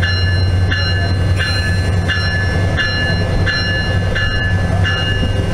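Locomotive bell ringing steadily, about three strikes every two seconds, over a steady low hum of the idling locomotive.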